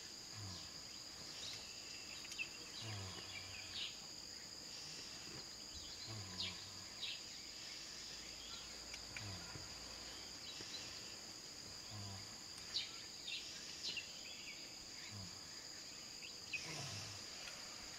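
Forest ambience: a steady high-pitched insect drone from crickets or cicadas. Faint scattered clicks and short low sounds come every few seconds.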